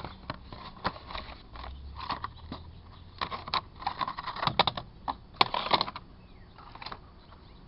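Irregular clicks and light rattles of small hard parts being handled, with a cluster of louder clicks about three to six seconds in.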